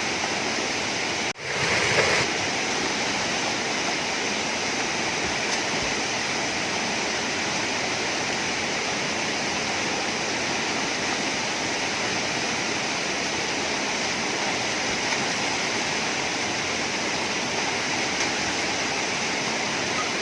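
Steady rushing of a waterfall and flowing water. The sound drops out for an instant about a second in and is briefly louder just after.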